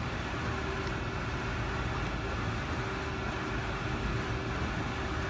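Mighty Viper VT-27GL CNC turning center running: a steady machine hum with faint steady whining tones and no strokes or pauses.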